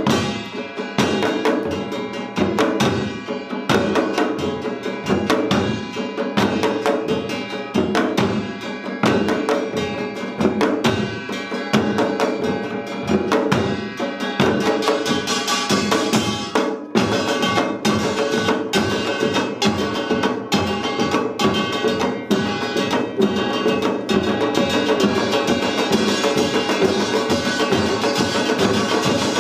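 Korean samul nori percussion ensemble playing a Yeongnam-style rhythm: buk barrel drums and janggu hourglass drum struck in rapid, driving patterns under the ringing clang of a kkwaenggwari small gong. There is a brief break a little past halfway, after which the playing becomes denser and more continuous.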